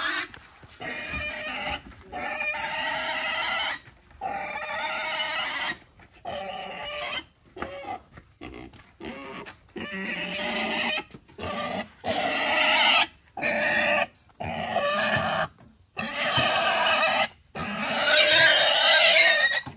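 Farm-raised wild boar squealing over and over in distress as it is caught and held: a long series of loud squeals, each a second or so, with short breaks between them, the longest and loudest near the end.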